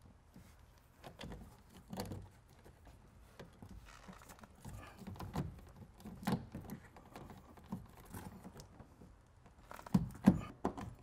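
Scattered small clicks, scrapes and knocks of a screwdriver and a plastic speaker pod being worked against a car's inner door frame while the mounting screws are lined up, with a few louder knocks about ten seconds in.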